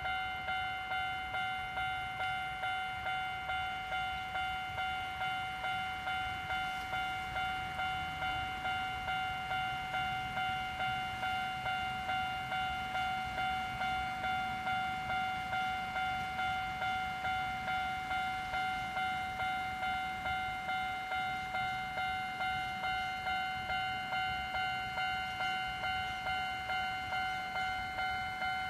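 Japanese railway level crossing's electronic warning bell ringing a steady, even ding-ding, about one and a half strokes a second, sounding while the barriers are down for an approaching train.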